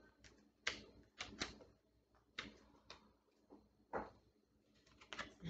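A handful of light taps and clicks, about seven, irregularly spaced: tarot cards being handled and laid on a table.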